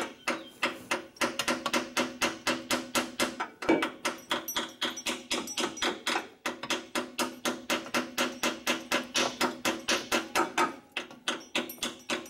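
Hammer tapping a socket-and-extension driver to seat a 1¼-inch freeze plug in the side of a Cummins 4BT engine block, about four ringing metal strikes a second. The plug closes the hole left by the deleted oil filler neck.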